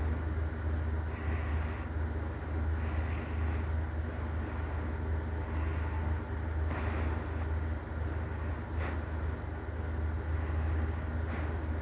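A sleeping person snoring: a steady low rumble with softer breathy rasps every second or two. There are a few brief rustles of movement in bed around the middle and near the end.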